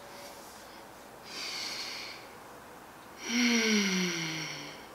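A woman breathes in, then about three seconds in lets out a long sigh with a voiced tone that falls in pitch.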